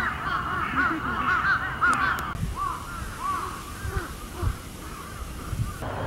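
A chorus of cicadas calling: many short arched notes repeat rapidly and overlap, thinning to scattered calls after about two seconds.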